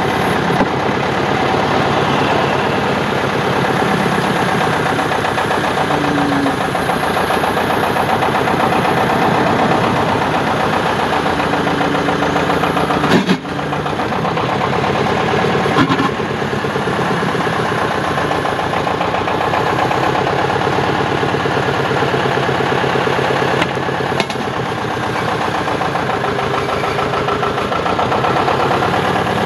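Thwaites Tusker digger's engine running steadily while the backhoe arm is worked, its note shifting a little a few times. A sharp knock comes about halfway through, with a brief dip in the engine sound, and lighter clicks follow later.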